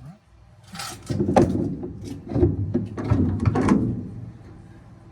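A rapid series of hard knocks and clatters, parts and tools being handled, from about a second in until about four seconds in.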